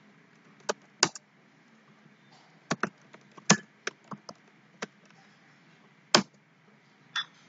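Computer keyboard keys clicking as a command is typed, in irregular, scattered strokes with a few louder key presses.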